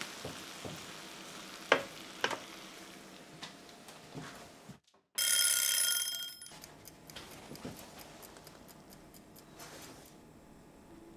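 Pork chops, potatoes and greens sizzling in a frying pan, with a few sharp clicks. After a brief silence about five seconds in, a mechanical wind-up kitchen timer rings its bell for about a second and a half, then ticks quickly for a few seconds, marking the end of the roasting time.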